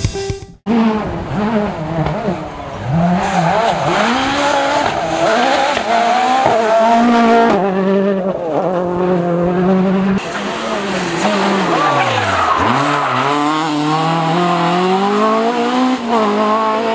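Rally car engines at full throttle, revving up and dropping back through gear changes, switching abruptly between cars a couple of times. About twelve seconds in, one engine's note falls steeply, then climbs again.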